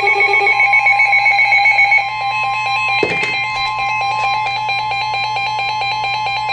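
NOAA Weather Radio alert for a new special marine warning: a steady warning alarm tone with rapid, evenly pulsing alarm beeps over it. There is a brief click about three seconds in.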